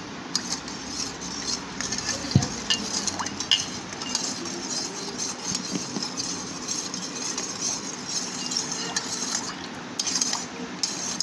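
A spoon stirring lemon water in a stainless steel pot, scraping and clinking against the metal sides, with a sharp clink about two seconds in.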